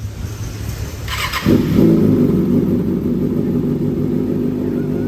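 Kawasaki ZX6R 636's inline-four engine starting: a brief crank about a second in, then it catches loudly about a second and a half in and settles into a steady, deep idle through a straight link pipe with the catalytic converter removed.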